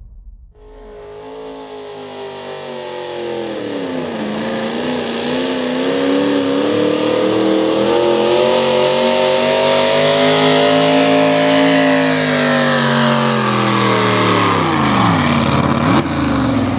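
V8 hot rod pulling tractor's engine running hard under load while dragging a weight-transfer sled. Its pitch dips about four seconds in, climbs back and holds, then falls away near the end as the pull finishes and the engine comes off the throttle.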